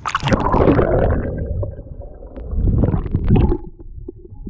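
Water sloshing and gurgling right at the microphone, in two loud surges: one at the start lasting about a second and a half, and another around three seconds in.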